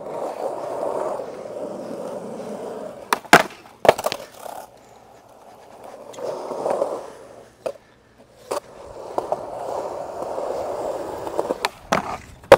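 Skateboard wheels rolling on concrete, a steady rumble broken by sharp board cracks and clatters: two loud ones a little over three seconds in, a couple more around eight seconds, and the loudest at the very end as the board hits a ledge.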